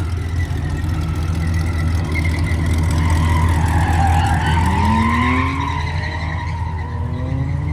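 Car engine running while the car drives off, its revs rising in a couple of climbs, the clearest about halfway through, over a steady low road rumble.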